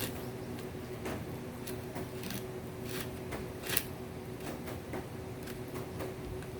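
A cat chewing and gnawing on heated corn, with irregular small crunching clicks several times a second.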